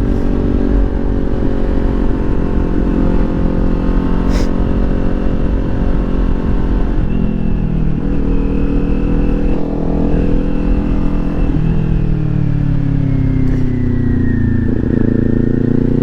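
Kawasaki Ninja 400's parallel-twin engine running on its stock exhaust while being ridden. The engine note steps lower about seven seconds in and again near twelve seconds, sags, then climbs again near the end.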